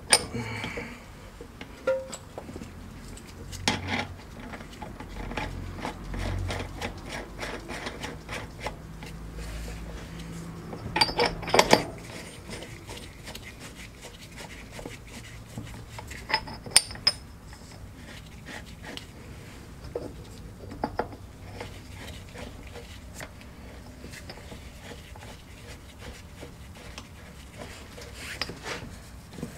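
Steel parts of a silent-bloc extraction kit clinking and scraping against each other and the suspension arm as they are fitted, with a cluster of louder metal knocks about a third of the way in and a single sharp clink a little past halfway.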